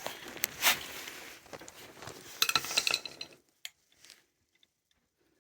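Metal fittings and tools clinking and scraping as a pressure gauge is handled and fitted, with a few sharp clicks. The clinking stops about three seconds in, leaving only a few faint ticks.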